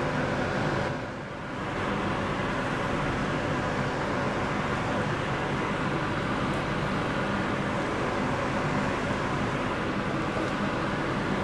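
Hot oil sizzling steadily as fresh murukku dough spirals deep-fry in an aluminium pan; the sizzle dips briefly about a second in, then carries on evenly.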